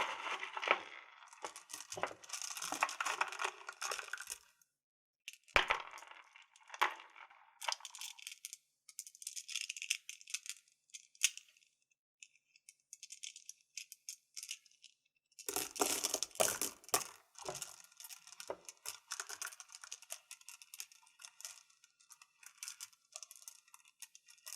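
Small crystals clinking and rattling against each other, in bursts. There are two sharper single taps about five and a half and seven seconds in, and a short lull before the rattling starts again.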